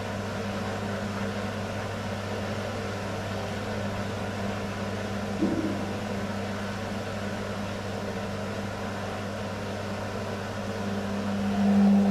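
Beko washing machine running with a steady low hum while it works through a suds lock. There is a short knock about halfway, and near the end the motor hum swells as the drum starts to turn.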